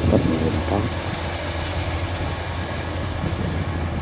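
Kubota DC105X combine harvester running: a steady low diesel drone under a broad, even mechanical rush from its cutting and threshing machinery.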